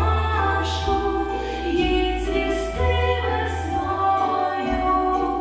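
A song with female voices singing over a steady bass line, with bass notes changing every second or two and a light cymbal-like hiss now and then.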